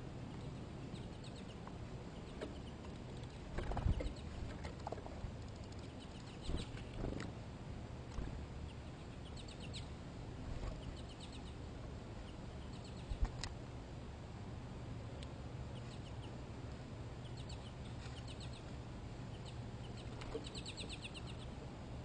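Small wild birds calling: short, rapidly pulsed high calls several times, most of them in the second half. A few sharp knocks and thumps from birds at a clear plastic seed feeder, the loudest about four seconds in and again past the middle, over a low steady hum.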